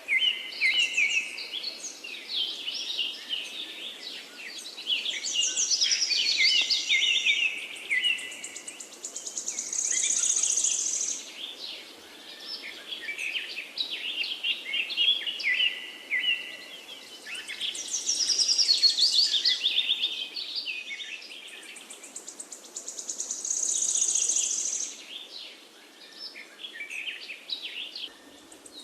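Songbirds singing: a chorus of rapid, overlapping chirps and trills, with a high buzzing trill about ten seconds in and again near the end.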